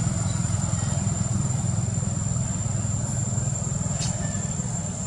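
Steady low rumble of a motor running, with a constant thin high-pitched whine above it and one brief sharp high sound about four seconds in.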